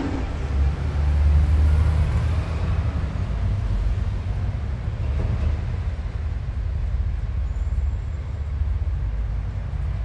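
A steady low rumble, loudest about one to two and a half seconds in.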